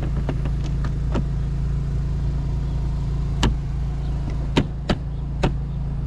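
An engine running steadily with a low hum. Several sharp knocks or clacks come over it in the second half, the loudest around the middle and three more close together near the end.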